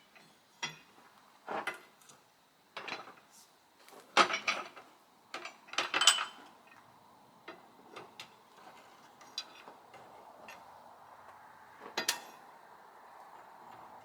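Irregular metallic clanks and clinks, about a dozen, some ringing briefly, as steel tools and bolted iron parts of a sawmill carriage knock together during teardown. The loudest strikes come about four and six seconds in.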